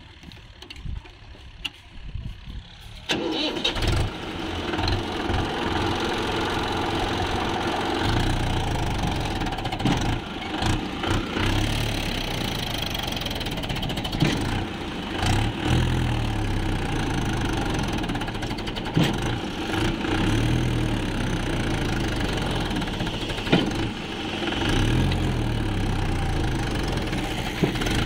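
Swaraj tractor's diesel engine starting with a sudden catch about three seconds in, after a few light clicks. It then runs with its note rising and falling as the tractor moves through sand.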